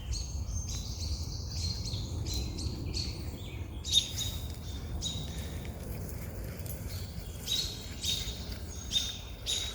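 Small songbirds chirping, with short high chirps coming in scattered runs, over a steady low rumble.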